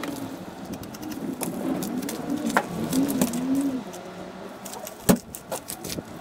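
A pigeon cooing in a run of low notes that rise and fall, with scattered clicks and knocks. The sharpest knock comes about five seconds in.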